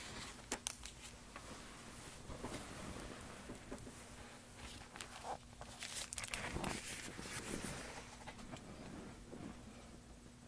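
Faint handling noise from a picture book being moved about and its page turned: soft paper rustles and scattered light taps and clicks.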